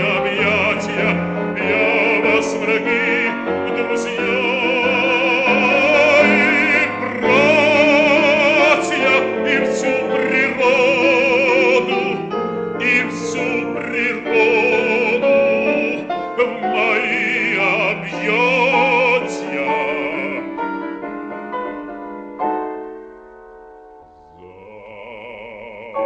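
Operatic bass voice singing a Russian art song with wide vibrato over piano accompaniment. Around twenty seconds in the voice stops and the piano plays a falling closing passage that fades. Near the end a new held, wavering sung note begins.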